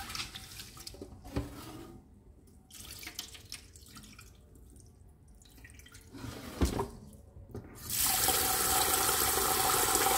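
Rice being washed in a pot in a steel sink: hands swishing the grains through the water and the cloudy rinse water tipped out, with a knock of the pot a little before seven seconds in. About eight seconds in the kitchen tap starts running into the pot, a steady rush that is the loudest sound.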